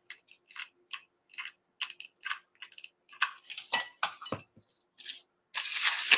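Hot glue gun trigger clicking in short squeezes, about two a second, as glue is laid along a wooden paint paddle. A few soft knocks follow as the paddle is pressed onto foam board, then a rustling burst near the end.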